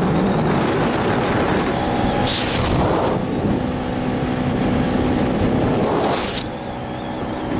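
115-horsepower outboard motor running as the boat cruises, under steady wind rush over the microphone. Two brief hissing gusts come about two and a half seconds in and again about six seconds in.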